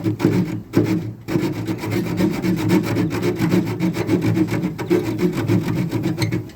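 Saw cutting through an aluminum boat rub rail, a fast run of rhythmic rasping strokes with two short breaks about a second in.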